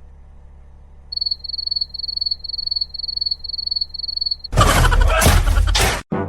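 A high-pitched beeping, about two to three beeps a second for a few seconds, followed by a loud crash-like noise lasting about a second and a half.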